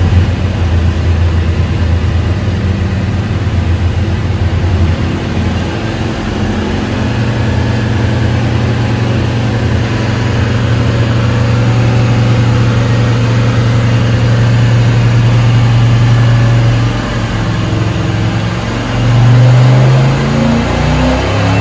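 Carbureted Chevrolet LT1 small-block V8 running on an engine dyno, heard through the dyno cell window. It runs choppy at low speed at first, is brought up to a higher, steady speed about six seconds in and held there for about ten seconds, then drops and revs up and down near the end as the dyno pull gets under way.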